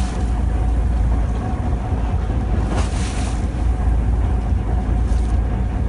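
Boat engine running steadily under wind buffeting the microphone, with sea noise around the hull and a brief rush about three seconds in.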